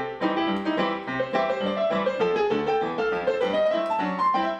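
Piano music: a quick, continuous run of struck notes.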